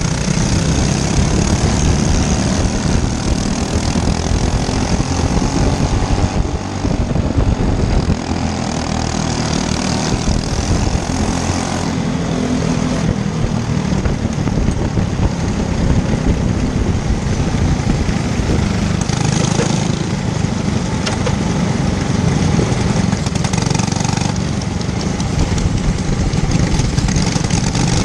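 Racing go-kart engine running continuously and loud, a dense mechanical drone throughout.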